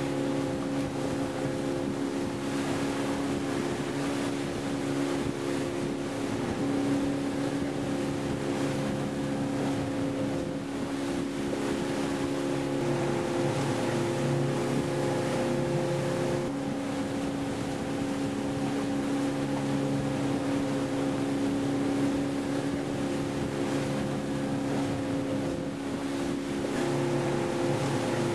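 A boat's engine running steadily at cruising speed, a low hum over the rush of water past the hull and wind.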